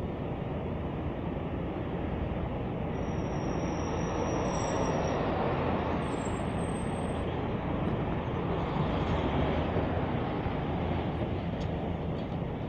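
Steady road traffic rumble that swells a little through the middle as vehicles pass, with two faint, thin high-pitched squeals.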